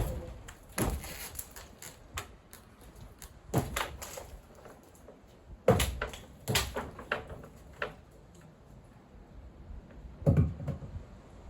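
Scattered knocks and thumps of wooden pergola timbers being worked loose and knocked about, in irregular clusters about every one to three seconds.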